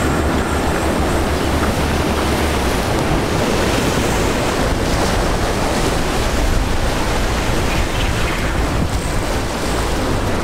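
Ocean surf breaking against the jetty's rocks, with wind buffeting the microphone: a steady, loud rush of water and wind.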